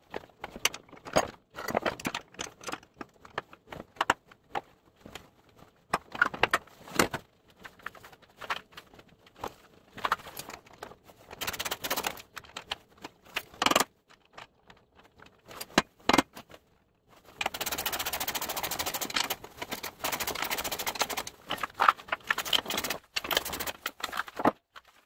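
Scattered metal clinks and taps of bolts and tools being handled, then in the last third a socket ratchet clicking rapidly for several seconds as bolts on a steel plow mount plate are tightened.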